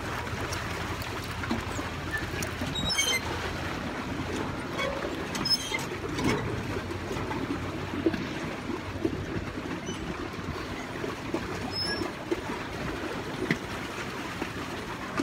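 Small boat under way on a lake: a steady low rumble with water noise along the hull and a few scattered knocks and clicks.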